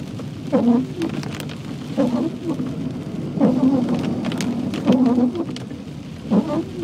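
Windscreen wipers sweeping across wet glass, each pass giving a short squeaky judder about every one and a half seconds. Under them is a steady hiss of rain and wet tyres.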